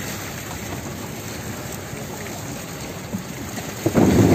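Water splashing and churning as a mass of fish thrashes in the hauled-in ring net alongside the fishing boat. It gets suddenly louder near the end.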